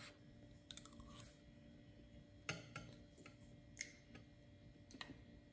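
Faint, scattered clicks and taps of metal spoons against ceramic bowls, with small eating sounds, as children eat oatmeal. The clearest ticks come about two and a half and four seconds in.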